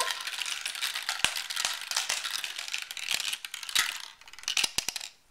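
Marbles clattering through a plastic marble run: a quick, uneven string of clicks and rattles, with a few louder knocks among them.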